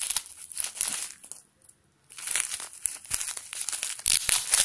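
Clear plastic packaging wrap crinkling and rustling as it is pulled open by hand, in two spells with a short pause between, and a few sharper crackles near the end.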